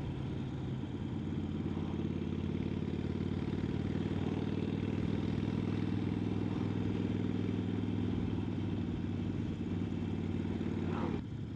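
Harley-Davidson XL1200N Sportster's 1200 cc air-cooled V-twin running steadily at cruising speed, heard from the rider's seat. The engine note drops and quietens about eleven seconds in.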